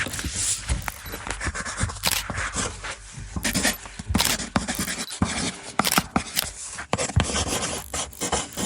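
Irregular scratching and scraping with many sharp clicks and crackles, uneven in loudness.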